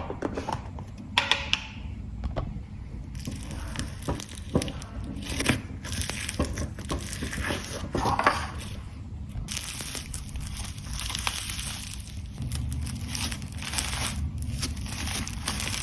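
Slime being squished and worked by hand, giving dense, irregular crackling and crunching pops.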